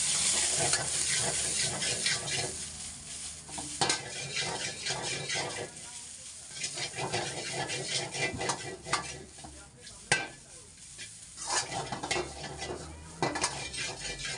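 Shredded cabbage, carrot and capsicum sizzling in a hot wok while a steel ladle stirs and tosses them, the ladle scraping and clanking against the wok at an irregular pace. The sizzle is loudest at the start.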